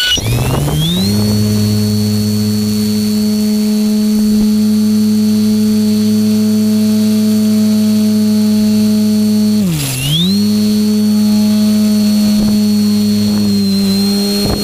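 Electric motor and propeller of a GWS Slowstick RC plane, heard from the camera mounted on it. It spins up with a rising whine, then runs at a steady pitch. About ten seconds in it briefly drops in pitch as the throttle eases off, and it winds back up.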